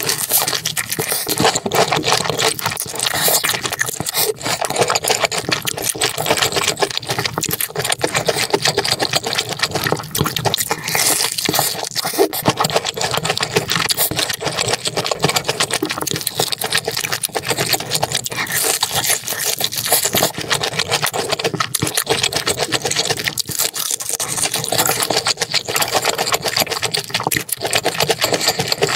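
Close-miked chewing of crispy deep-fried battered food, a dense run of fast crunches and crackles.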